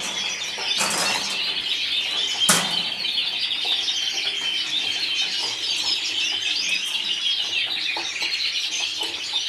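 Several domestic colour canaries chirping and twittering continuously in a wire cage, with two brief sharp flutters or clatters about one and two and a half seconds in as a canary is put into the cage.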